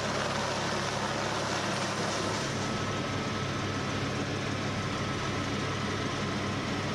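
A motor engine running steadily, a constant drone with a low hum that shifts slightly about two and a half seconds in.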